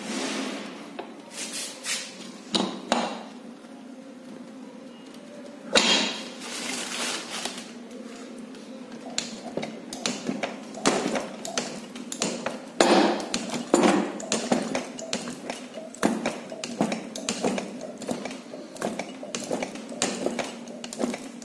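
Hand-pumped hydraulic puller pressing a ball bearing off a motorcycle crankshaft: irregular metallic clicks and knocks from the pump strokes and the loaded tooling, with sharper knocks about six seconds in and again around thirteen seconds.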